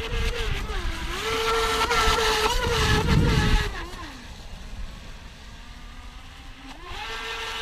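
Pro Boat River Jet 23 radio-controlled jet boat's brushless electric motor whining at speed on a 4S battery, its pitch dipping briefly about a second in. The whine then falls away as the throttle eases off, stays faint for a few seconds, and rises again near the end.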